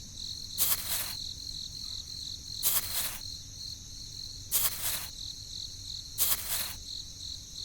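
Crickets chirping steadily in a high trill, with a louder, hissy burst about every two seconds, four times in all.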